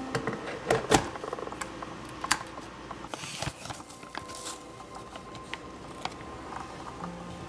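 Scattered clicks and light knocks of kitchen items being handled while a cocoa-bean drink is prepared, the loudest about a second in, with a brief rustling hiss near the middle.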